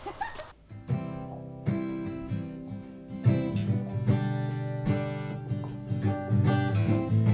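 Background music of acoustic guitar strumming, starting about half a second in and getting louder.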